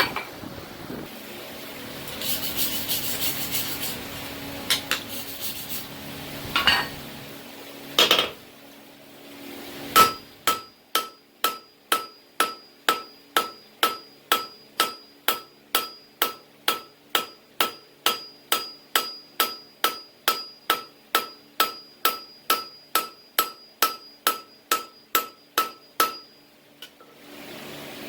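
Steady hammer blows on steel at an anvil, a little over two a second, each with a metallic ring; they begin about a third of the way in and stop shortly before the end. Before them come a few scattered knocks and a brief hiss.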